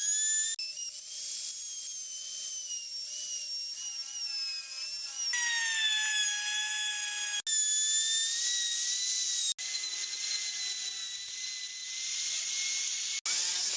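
High-pitched whine of a high-speed power tool motor, running steadily in several short segments that cut abruptly from one to the next, each at a slightly different pitch.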